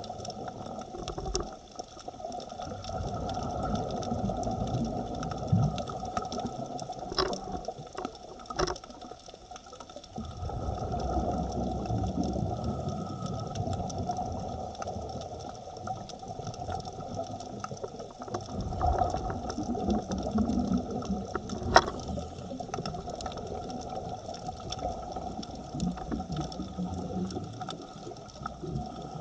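Underwater sound of a scuba dive: the diver's exhaled bubbles rumble in surges lasting a few seconds, with quieter pauses between breaths, over a steady mechanical hum. A few sharp clicks stand out, the clearest about 22 seconds in.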